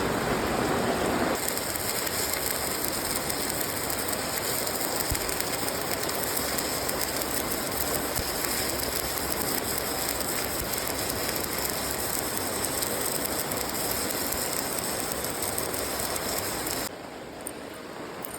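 Electric arc welding on an excavator arm: a steady crackle and sizzle of the arc that starts about a second and a half in and cuts off suddenly near the end.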